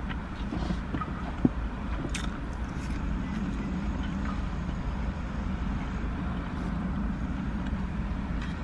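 Steady low hum inside a parked car's cabin, the engine idling with the air conditioning running, with a few faint ticks of a plastic fork against a paper fry tray.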